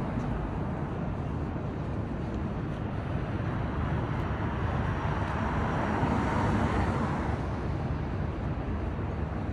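City street traffic: a steady rumble of vehicles, with one vehicle passing closer and louder about six seconds in.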